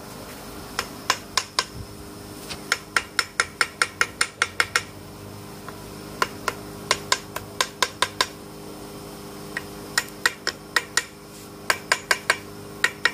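Bursts of sharp metallic taps, about five a second, from hand tools on the metal parts of a disassembled aerator blower, over a steady hum.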